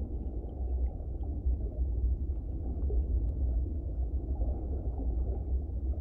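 Steady low underwater rumble, with a few faint scattered clicks above it.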